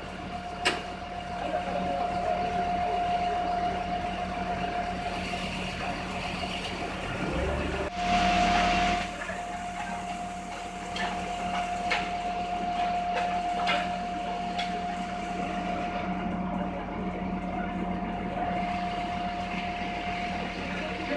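Fire truck's engine and pump running steadily under a constant high whine, with a few sharp clicks and a brief louder rush of noise about eight seconds in.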